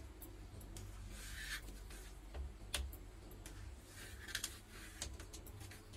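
A knife scoring a soft layer of potato and rice-flour paste in a steel plate: faint scraping strokes, with a few light clicks as the blade touches the metal.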